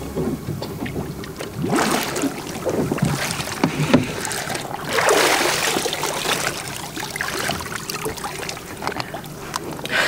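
Water splashing and sloshing around a scuba diver at the side of a boat as he surfaces and hands up his camera housing. The noise surges about two seconds in and again around the middle.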